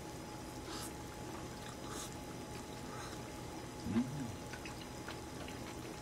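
Close-up eating sounds: slurping and chewing of sukiyaki from a bowl, a few short slurps over the faint steady bubbling of the simmering pot. About four seconds in comes a brief hummed "mm", the loudest moment.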